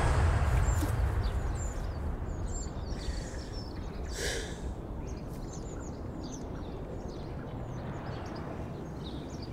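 Aeroplane passing overhead, its low rumble fading away over the first few seconds, leaving a quiet outdoor background with small birds chirping and a brief hiss about four seconds in.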